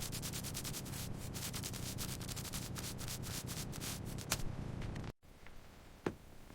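Sanding: fast, even abrasive rubbing strokes on a hard surface, cutting off abruptly about five seconds in. A couple of faint clinks follow.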